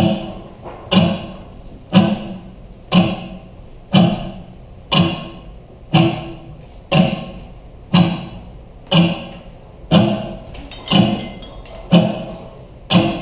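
A steady percussive beat: one sharp strike about once a second, each ringing briefly and fading before the next.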